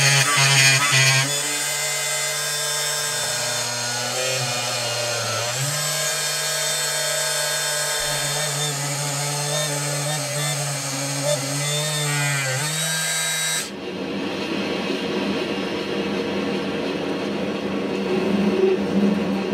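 Small electric drill spindle whining steadily as it cross-drills a hole through a steel shaft held in a lathe chuck, its pitch stepping down and up a few times under load. About two-thirds through, the whine gives way to the lower, rougher sound of the lathe turning the shaft with a cutting tool.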